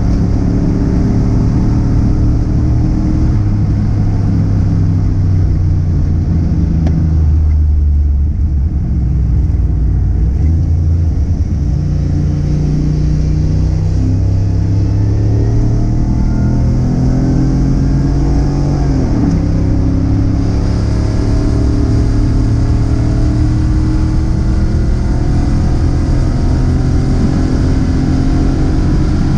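Car engine under load, its note climbing and dropping repeatedly as it accelerates and changes gear, with a sharp drop in pitch about nineteen seconds in.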